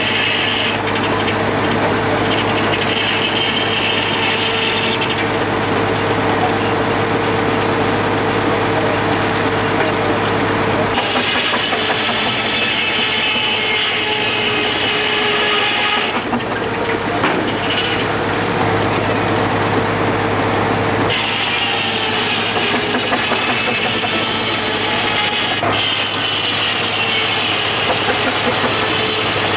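Steam engine driving a belt-driven circular saw ripping a log: a loud, steady mechanical running sound with hiss and a couple of held tones, shifting abruptly about 11 and 21 seconds in.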